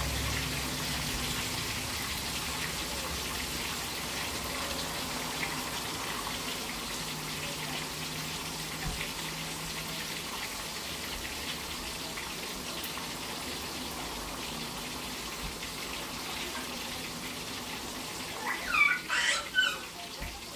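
Steady hiss and faint crackle of cooking on an electric stove: a pot of broth on the boil and a frying pan of oil sizzling. A few short high-pitched sounds come near the end.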